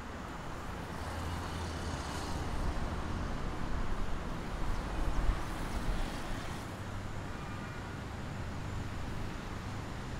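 Road traffic: a passing vehicle's low engine hum swells between about one and seven seconds in, loudest near the middle, over steady traffic noise.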